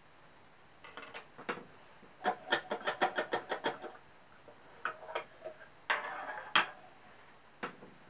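Wooden magic-trick props being handled on a tabletop: a cabinet's front panel and a painted cube block knocked and set down. A quick clatter of about ten clicks comes a couple of seconds in, with single knocks scattered before and after it.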